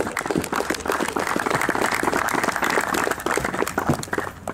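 Audience applause: steady, dense clapping that dies away at the very end.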